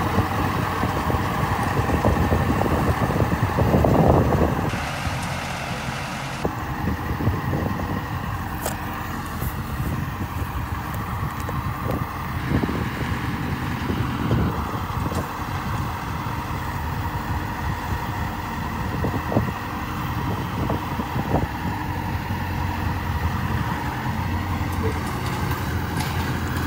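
John Deere self-propelled high-clearance sprayer's engine running as the machine drives slowly. It is louder for the first four seconds or so, then settles to a steady run.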